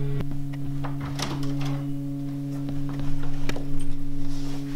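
A steady low drone of held tones runs throughout, with scattered clicks and knocks from a classroom door and footsteps. It gets louder about three seconds in.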